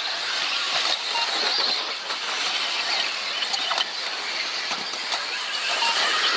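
Radio-controlled off-road model cars racing round a track. Their motors make a faint, wavering high whine over a steady hiss.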